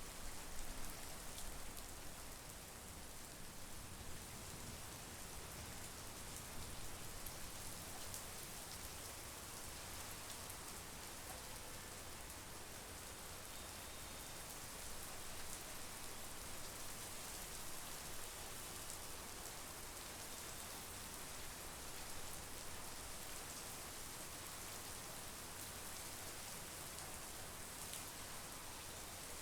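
Steady monsoon rain falling, an even hiss of rain with scattered individual drop ticks.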